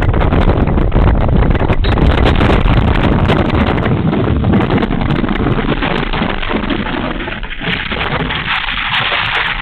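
Strong wind blowing hard across a phone microphone and buffeting it, with many small knocks and rattles through it. The gusts ease somewhat and turn hissier near the end.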